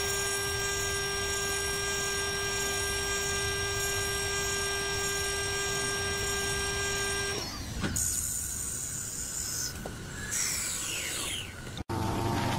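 Wood lathe running with a steady whine while a hollowing tool cuts inside a spinning wooden cylinder. About seven seconds in, the whine stops abruptly, other shifting sounds follow, and there is a sudden change just before the end.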